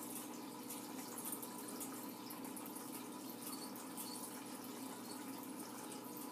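Small aquarium filter running: a steady trickle and fizz of moving water over a low, even hum.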